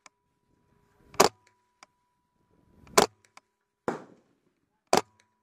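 Rifle fired from a bipod: three sharp shots, a little under two seconds apart, with a fainter sudden sound between the second and third.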